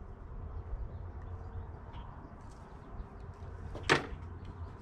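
A single short cough about four seconds in, over a steady low hum.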